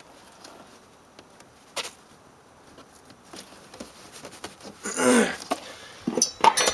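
Faint clicks and taps of hands fitting a small plastic cover into a snowmobile's side panel, with a louder brief sound about five seconds in and a few sharp clicks and rattles of handled parts near the end.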